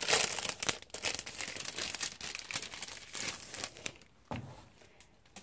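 Packaging and sticker sheets crinkling and rustling as a sticker order is unwrapped and handled, the rustling dying away about four seconds in with one soft knock.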